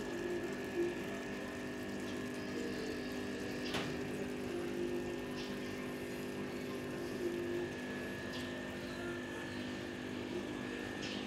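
Aquarium air pump humming steadily, driving air stones that bubble in a pond tub, with a few faint clicks.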